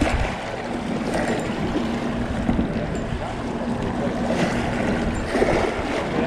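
Wind on the microphone and choppy water washing against shoreline rocks, with a steady low hum underneath.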